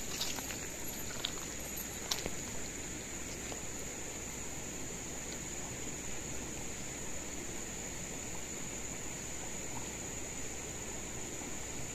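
Shallow, fast river water running steadily over stones, with a steady high-pitched drone above it. A few crunches of bare feet on pebbles come in the first couple of seconds.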